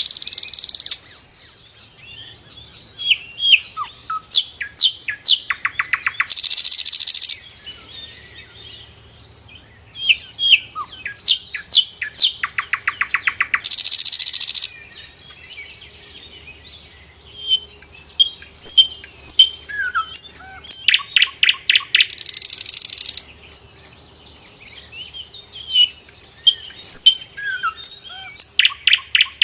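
Sikatan londo flycatcher singing in a repeating cycle of sharp, quickly falling whistled notes, a fast trill of rapid even notes, and a harsh buzzy rasp about a second long. The cycle comes round about every seven to eight seconds.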